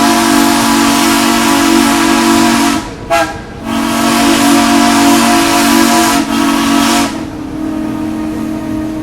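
Steam locomotive chime whistle blowing loudly, several notes sounding together over steam hiss: a long blast that breaks off about three seconds in, a brief toot, then another long blast that stops about seven seconds in, leaving a fainter tone trailing away.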